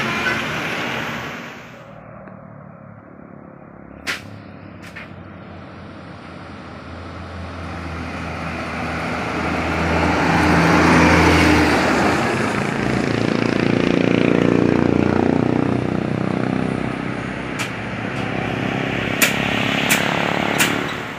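Big buses and trucks driving past, with a bus's diesel engine swelling to a loud drone as it passes close about halfway through, then fading. A few sharp clicks ring out, several of them near the end.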